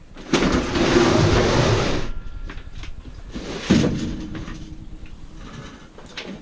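Scrap metal being dragged or shifted with a loud scraping rumble for about two seconds, then a single metallic knock with a short ringing tail, and a few small knocks after.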